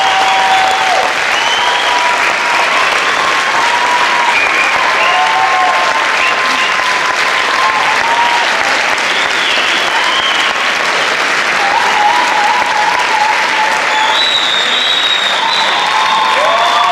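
Theatre audience clapping loudly, with many drawn-out cheers and whoops over the applause.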